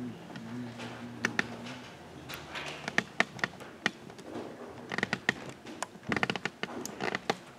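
Scattered light clicks and knocks of footsteps and handling as people move about, some bunched in quick runs around the middle and near the end. A faint low hum runs in the first couple of seconds.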